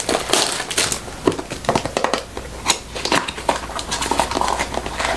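Cardboard perfume box being handled and opened: irregular rustles, scrapes and light taps of the packaging.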